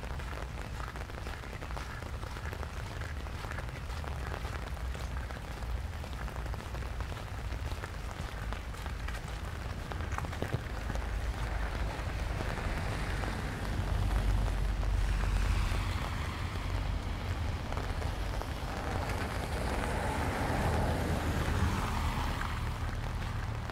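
Steady rain falling on a wet path and street, with wind rumbling on the microphone. In the second half, tyre hiss from cars on the wet road swells and fades twice.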